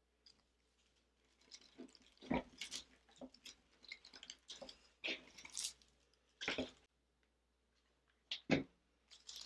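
Faux greenery stems rustling and crackling against a dry grapevine wreath base as they are pushed in and pressed into place by hand, in short, scattered bursts.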